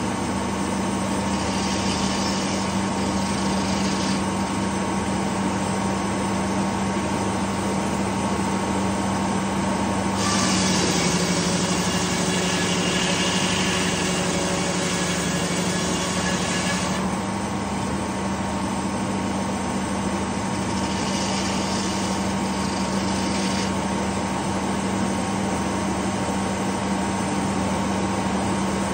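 Detroit Diesel engine running steadily, driving a large circular sawmill blade. About ten seconds in, the blade cuts through a pine log for about seven seconds: a loud rasping hiss over the engine, whose pitch sags a little under the load. There are briefer, fainter spells of blade hiss near the start and about three-quarters through.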